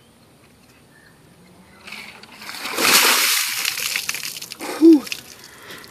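A bucket of ice water dumped over a person's head, splashing onto him and the driveway. The water starts about two seconds in, is loudest for about a second, then tails off into splatter. A short cry comes near the end.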